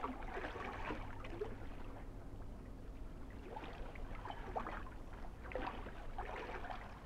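Small waves lapping and splashing irregularly against rocks at the water's edge, over a low steady rumble.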